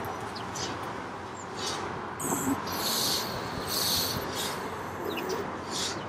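Small garden birds at feeders giving a string of short, high chirps, one every second or so, over a steady background hiss.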